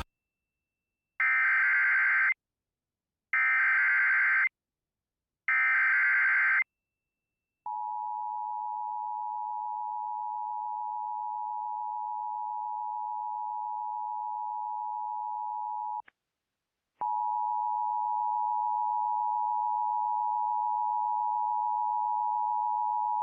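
Emergency Alert System SAME header: three short bursts of digital data warble. They are followed by the steady two-tone EAS attention signal, which drops out briefly with a click about 16 seconds in and then resumes. Together they announce an incoming tornado warning.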